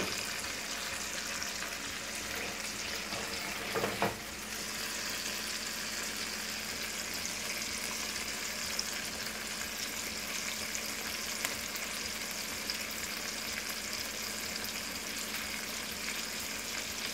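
Chicken breasts searing in olive oil and butter in a frying pan, sizzling steadily. A brief knock about four seconds in.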